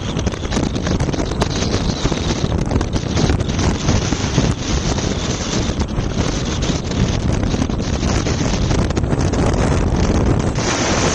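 Loud wind rumble and buffeting on the microphone, with scattered crackles, cutting off suddenly at the end.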